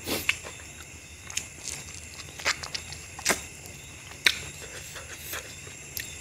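Close-miked eating sounds: wet finger and mouth smacks and short clicks as meat is picked off a mutton bone and curry rice is eaten by hand. The strongest clicks come at the very start, a little past three seconds, and just past four seconds.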